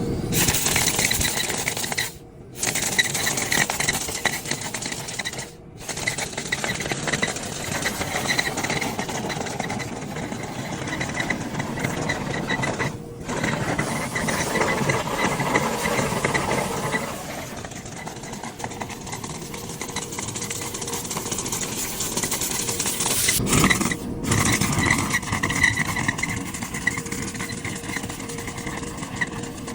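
Power cleaning equipment running in a commercial dryer vent duct during lint extraction: a steady motor with a rattle, dropping out briefly a few times.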